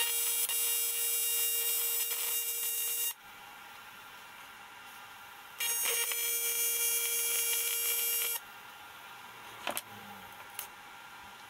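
TIG welding arc on aluminium buzzing steadily in two passes of about three seconds each. The arc cuts out about three seconds in and starts again a couple of seconds later. A couple of faint clicks come near the end.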